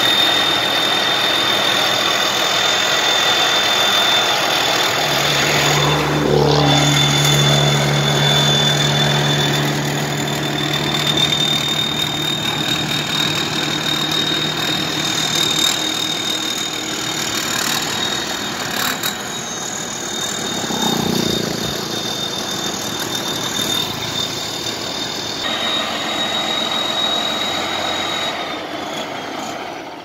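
Engine of a homemade tracked rice harvester running, with a steady high whine over it. A deeper drone comes in about five seconds in and eases off some ten seconds later, and the sound falls away near the end.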